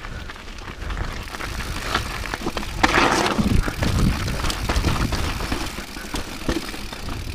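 Rocky Mountain 790 MSL full-suspension mountain bike riding down a rocky dirt trail: tyres rumbling over gravel and stones, with clattering knocks as the bike hits rocks. The noise grows louder about a second in, with a brief louder rush about three seconds in.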